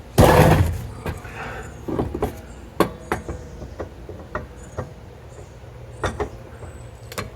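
A short, loud scraping rush near the start, then scattered sharp knocks and clicks at irregular intervals, as heavy equipment is shifted and handled while a backhoe attachment is worked onto its cart.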